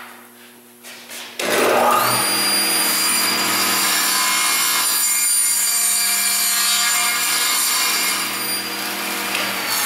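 Table saw switched on about a second and a half in, its motor whine rising briefly as the blade comes up to speed, then running steadily. A small crosscut sled is pushed through the spinning blade, cutting a small piece of wood.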